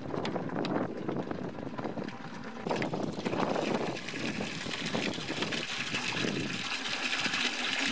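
Wind on the microphone, then from about three seconds in a stream of water from a rain-gutter downspout pouring and splashing steadily into a plastic bucket.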